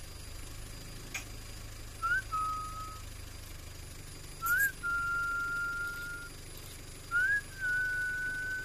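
Three clear whistles a couple of seconds apart, each a short upward slide into a held level note, the later two held longer. A low steady hum runs underneath.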